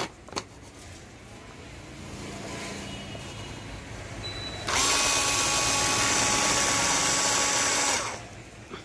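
Small electric motor whirring steadily for about three seconds, switched on and off abruptly. The source is the Wonderchef Zippy cordless chopper's rechargeable 30 W motor running its blades. There are a couple of handling clicks at the start.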